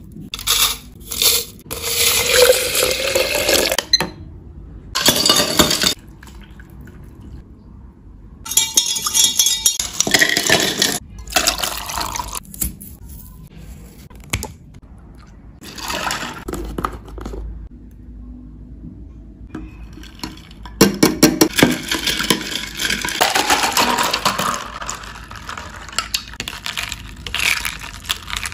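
Kitchen preparation sounds in separate short takes: dry tea leaves spooned into a glass bowl, scissors cutting open a milk carton, and milk poured into a glass bowl, rising in pitch as it fills.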